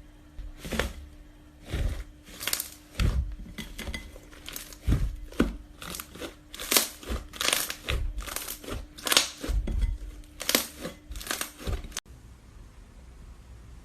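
Slime being squeezed and pressed by hand, making a dense run of irregular crackling pops. The crackling cuts off abruptly near the end, leaving a faint hiss.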